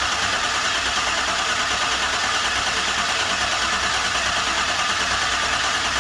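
Chevy Silverado 2500 engine cranking steadily on the starter without firing. This is the truck's no-start fault, which the owner puts down to ripped-out wiring for its CNG (compressed natural gas) system switch.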